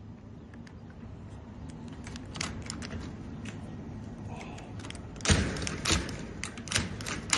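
Metal clicks and knocks of a tool working the drilled-out cylinder of a smart lock: a few light ticks at first, then a run of sharp, louder knocks from about five seconds in.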